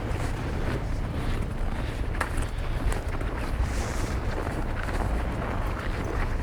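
Wind buffeting the microphone in a snowstorm: a steady low rumble with a hiss of blowing wind over it.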